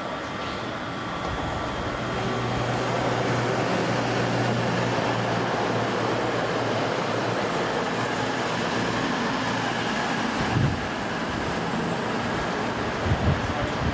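A train passing at the station: a steady, loud rumble and rush of the train that swells about two seconds in, with a low engine hum for a few seconds. A few short low thumps come near the end.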